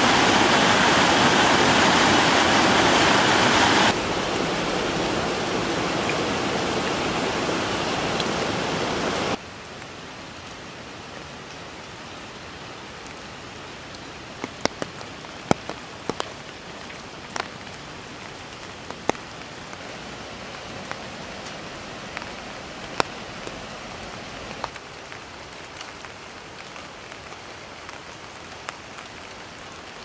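Rushing river water spilling over a small cascade, loud at first and dropping about four seconds in. About nine seconds in it gives way to steady light rain, with scattered sharp drips close by.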